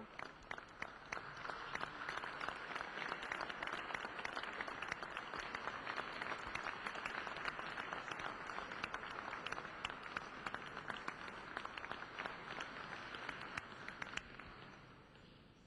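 Large crowd applauding, a dense steady clapping that fades out near the end.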